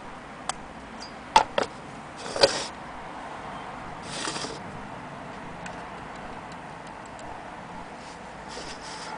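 A brass 400-day clock movement handled and turned over in the hands: a few irregular sharp metallic clicks and knocks, the loudest about two and a half seconds in, with brief rustling.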